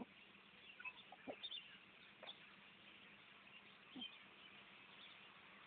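Near silence: a faint steady hiss with a few brief, faint chirps or clicks scattered through it.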